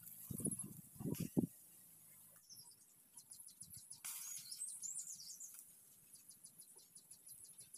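Skewered chicken wings grilling over a charcoal stove, with faint quick crackling ticks and birds chirping in the background. A few low bumps sound in the first second and a half.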